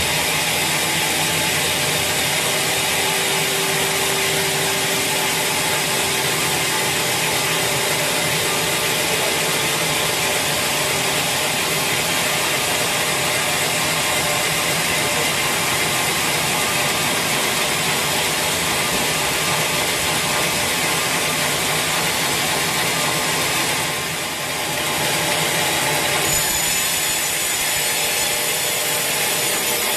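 A sawmill saw cutting steadily through a large teak log, a continuous rasping noise of blade in wood. It eases briefly once, and a faint high whine joins in near the end.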